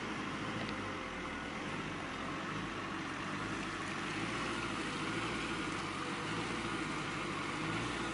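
Classic Range Rover's VM diesel engine running steadily under load as the truck crawls forward through deep mud.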